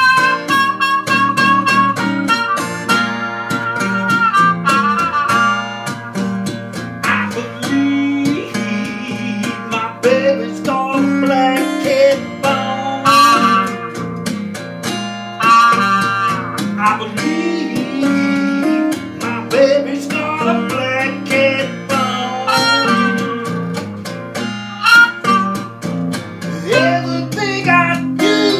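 Live acoustic blues: a trumpet playing a melody with bent notes over an open-tuned acoustic guitar's strummed accompaniment.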